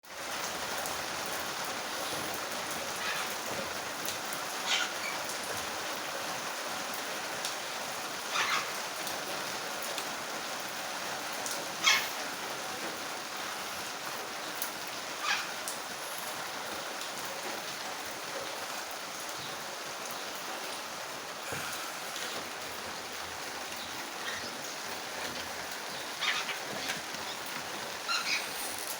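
Steady rain falling, with short duck calls breaking through now and then, about six times, the loudest roughly twelve seconds in.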